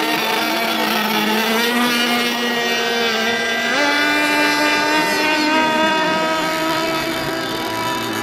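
Radio-controlled model boat motor running at speed on the water, a steady buzzing whine that rises in pitch a little before halfway through and drops back down about six seconds in as the throttle changes.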